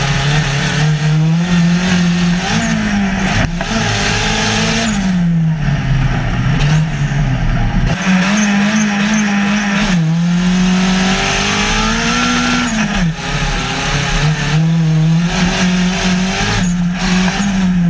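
Onboard sound of a short course off-road race car's turbocharged Nissan SR20DET four-cylinder engine at full race effort, its pitch climbing and dropping several times as it accelerates and shifts, over a rushing noise of wind and dirt.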